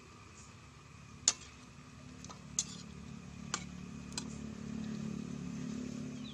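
Metal spoon knocking against a wok while stirring the chicken feet, four sharp clicks, the first the loudest. A low hum grows louder in the background from about two seconds in.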